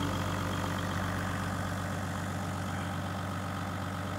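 Hino Liesse II minibus's 1HD-FTE straight-six turbodiesel idling steadily.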